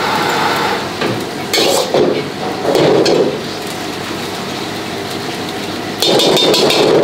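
Metal ladle scraping and clanking against a wok as chopped vegetables stir-fry over a high gas flame, with a steady sizzle and burner rush underneath. The louder bursts of stirring come about two seconds in, around three seconds, and again near the end.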